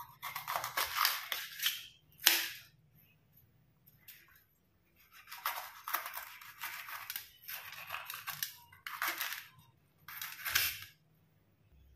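Kitchen knife slicing a green bell pepper into rings on a steel plate: crisp crunching cuts that come in bursts with short pauses, and a longer pause a few seconds in.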